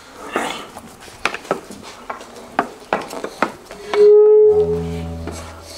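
Scattered sharp wooden knocks and clicks, wooden staffs and footsteps on pavement as the shepherds walk off. About four seconds in, a loud steady tone cuts in abruptly, followed by a lower held chord that fades away.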